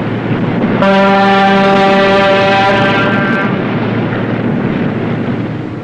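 Submarine's whistle sounding one steady, deep blast of about three seconds, starting about a second in, in celebration at the end of the war. A steady rushing noise runs underneath it.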